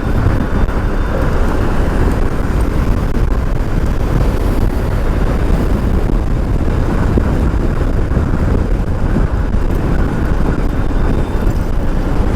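Wind noise on a helmet-mounted microphone while riding an e-bike: a loud, steady rush with most of its weight low down.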